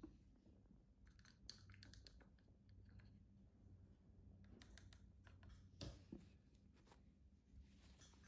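Near silence: faint scattered clicks and soft scratches as a baby squirrel shifts in a fleece blanket and a tissue is handled around it, over a faint low hum.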